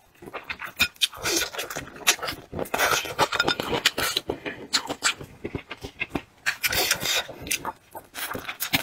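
Close-miked, wet chewing, sucking and lip-smacking on braised chicken feet, as a string of irregular clicks and slurps.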